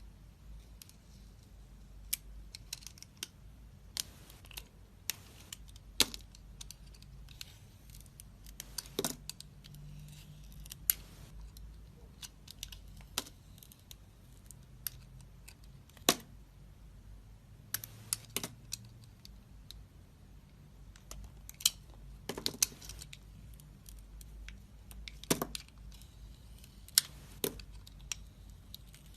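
Knife cutting into a bar of soap: irregular crisp clicks and short crackling clusters as the blade cuts and the pieces break away.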